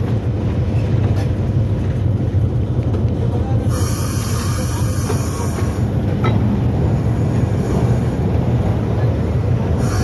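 Locomotive running steadily along the line: a low engine drone with the noise of the wheels on the rails. A higher hiss joins about four seconds in.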